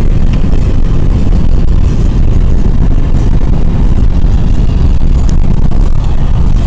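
Car travelling at highway speed, heard from inside: a loud, steady low rumble of road and wind noise.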